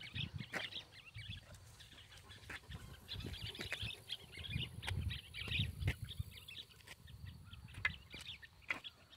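Faint footsteps on a road, with small knocks and clicks from walking with a dog on a leash, and birds chirping in the background.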